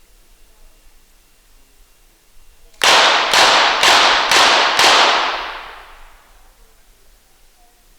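Five rapid shots from a .22 Short rapid fire pistol, about half a second apart, fired as one series at five targets. The echo rings on and fades over about a second after the last shot.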